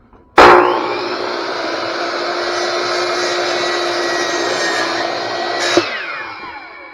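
A corded electric power tool's motor starts abruptly and runs loud and steady for about five seconds. It is then switched off and winds down, its whine falling in pitch.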